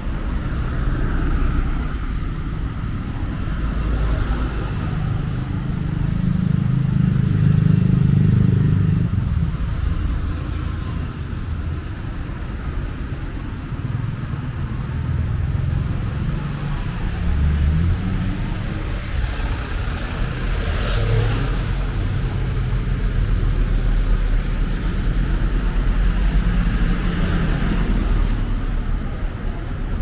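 Street traffic: cars passing close by, their low engine and tyre rumble swelling and fading, loudest about seven to nine seconds in.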